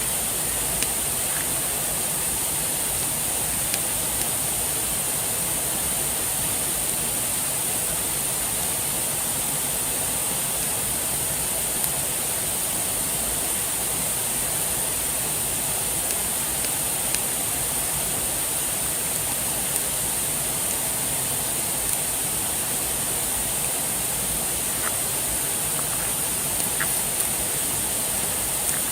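Steady rushing of flowing water, even and unbroken, with a few faint ticks here and there.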